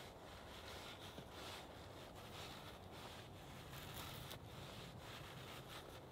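Faint scraping of a large leuku knife blade shaving thin curls down a dry wooden stick while carving a feather stick.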